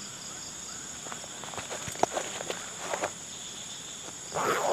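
Steady high-pitched insect chorus, crickets trilling without a break, with a few small clicks in the middle and a short louder scuffing noise near the end.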